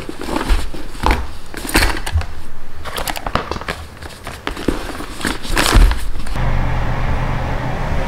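Rustling fabric with irregular light knocks and clicks as items are packed into a canvas tote bag. About six seconds in, this gives way to a steady low machine hum.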